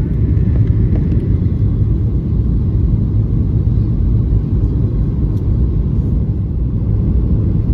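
Steady low rumble inside the economy cabin of a Boeing 737-800 on descent shortly before landing: engine and airflow noise heard through the fuselage.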